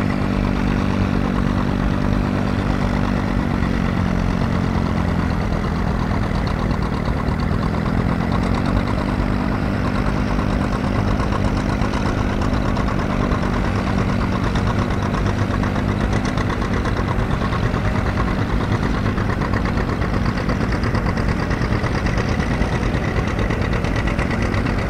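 Oliver row-crop tractor engine running steadily while pulling a plow. Its pitch dips slightly about seven seconds in, then picks back up.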